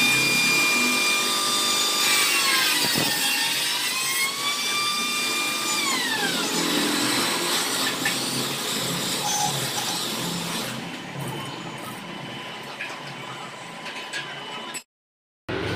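Angle grinder running with a high whine. Its pitch dips while the disc is worked against a steel gate bar, and the motor winds down about six seconds in, leaving fainter background noise.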